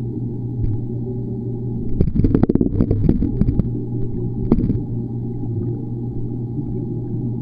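Underwater sound in a swimming pool: a steady low hum, with a flurry of knocks and clicks about two seconds in and one more click about a second later.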